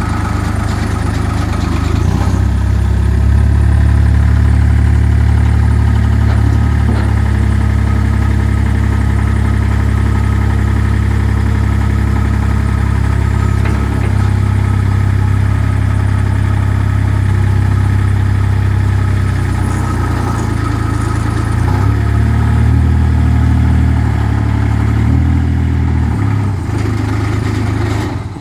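Thwaites 1.5-tonne hi-swivel dumper's diesel engine running steadily while its hydraulics raise, swivel and tip the skip, its note shifting several times as the load changes.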